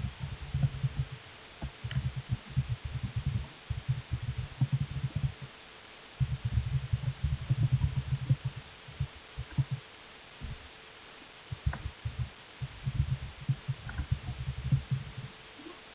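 Muffled low thumps in quick runs of a second or two, with short pauses between runs, over a faint steady hum.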